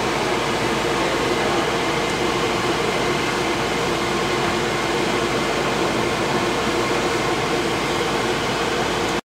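Steady mechanical whirring hum with a few faint held tones in it, level throughout with no distinct knocks or splashes.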